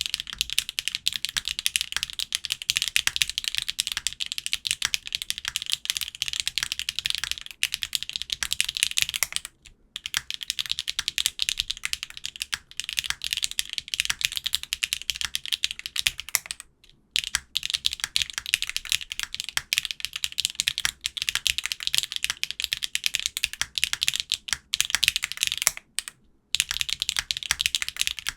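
Fast continuous typing on an aluminium LX60 custom mechanical keyboard with HMX Sunset Gleam linear switches, a high-pitched clacky sound; the case is modded with a 200 g bottom weight, O-ring mount and force-break mod. The typing stops briefly three times.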